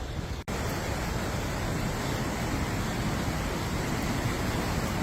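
Steady rushing of river water running through a gorge, an even noise with no single events, briefly cut out for an instant about half a second in.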